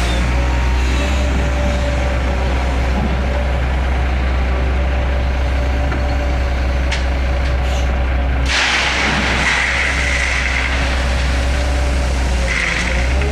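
Caterpillar M318D wheeled excavator's diesel engine running steadily under load, with a held whine over the rumble as the clamshell grab is swung and worked. About two-thirds of the way in there is a louder rushing noise lasting a second or so, and a shorter one near the end.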